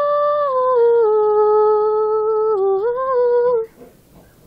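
A female voice singing one long held "whoa" without accompaniment. The note steps down in pitch about a second in, dips and comes back up near the three-second mark, and stops shortly before the end.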